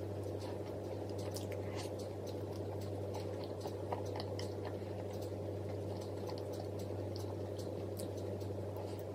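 A person chewing food, with many small irregular clicks, over a steady low hum.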